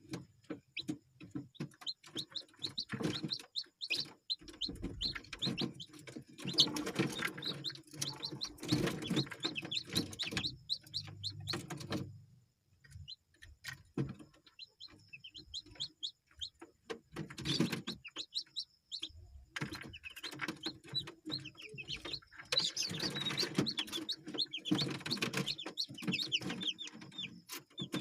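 Ayam kampung (Indonesian native chickens) clucking and chirping in quick runs, mixed with many sharp clicks and knocks, with a short lull about halfway through.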